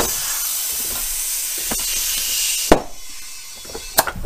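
Compressed air hissing loudly from an air chuck into a small tubeless zero-turn mower front tire to seat its beads. The air cuts off about two and a half seconds in with a sharp snap, and a second sharp snap follows about a second later.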